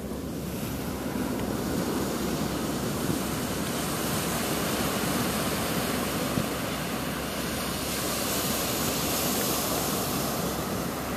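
A steady rushing noise with no distinct events, swelling a little over the first couple of seconds.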